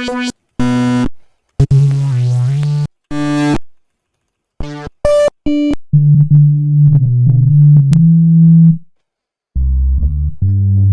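Software synthesizer presets being auditioned: short snatches of a melody in changing tones, each cut off abruptly with silence between. From about six seconds in, a low bass synth plays the line in longer notes, stopping briefly near the end before starting again.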